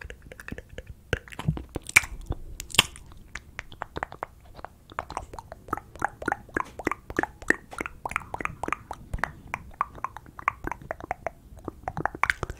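ASMR mouth sounds made right at the microphone: wet lip and tongue clicks and smacks. A few sharper, louder clicks come about two and three seconds in, then a quick, steady run of softer clicks, several a second.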